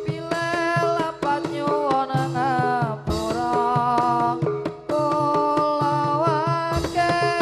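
Live Javanese Topeng Ireng dance music: drums beating a quick rhythm under a held melody line that bends and wavers in pitch.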